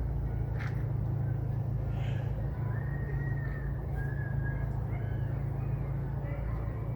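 Birds calling and whistling in short phrases over a steady low rumble.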